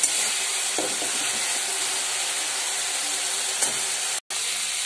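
Ground spice paste (masala) sizzling steadily in hot oil in a pan over a high flame. It is being fried until the oil separates, the sign that the masala is cooked. The sound cuts out for an instant near the end.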